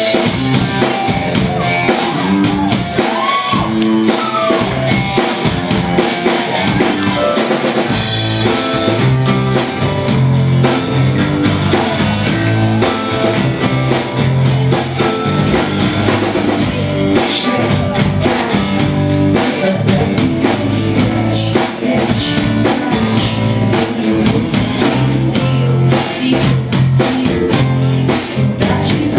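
Live rock band playing a song: drum kit, guitars and keyboard, with a woman singing; a strong low part comes in about eight seconds in.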